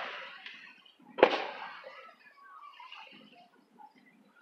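Aerial fireworks shells bursting: one sharp boom about a second in that dies away over about a second, and another boom right at the end.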